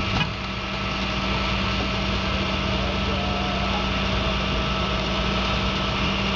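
Vehicle engines idling steadily, a constant low hum under a wide even wash of street noise, with faint voices among the crowd.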